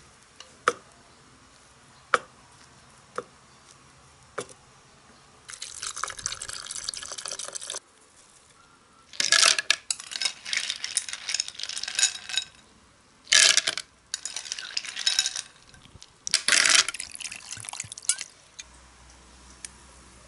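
A few separate sharp knocks, then several spells of liquid pouring and splashing into a plastic blender jar and a glass jar as a banana smoothie is made. No blender motor is heard.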